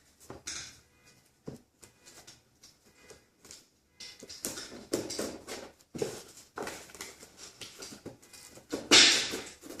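A cardboard box being opened and its packaging handled: a few scattered light taps and scrapes, then rustling and scraping from about four seconds in, with a louder burst near the end.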